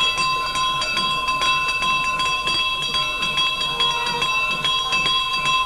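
Brass hand bell rung rapidly and continuously during a camphor aarti: quick clapper strikes over steady, overlapping ringing tones.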